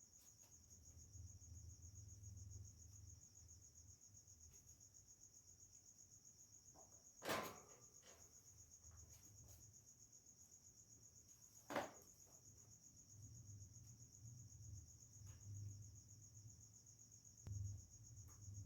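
Steady, faint high-pitched chirring of crickets, with two sharp knocks about 7 and 12 seconds in.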